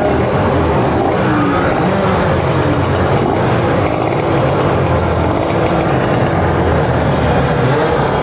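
Kawasaki Ninja RR 150 two-stroke motorcycle engines running loudly, the pitch wavering up and down a little as the throttle moves.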